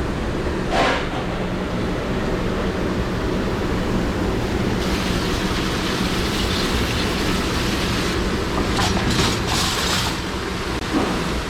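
Steady loud running noise of restaurant dish-room machinery, likely a commercial dishwashing machine, with a low hum underneath and a few short hissing surges.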